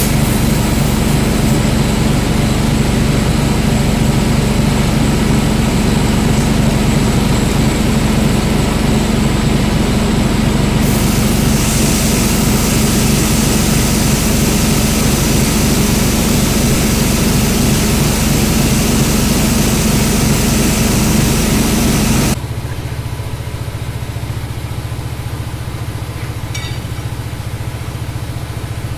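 Heavy engine idling steadily with a loud low hum. About twenty-two seconds in it cuts abruptly to a quieter, lower steady engine hum.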